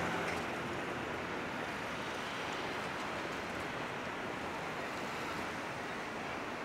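Steady outdoor background rush with no distinct events. A passing engine's hum fades out in the first half second.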